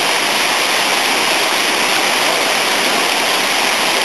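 Water rushing down a fish ladder, a loud, steady, unbroken rush of falling water.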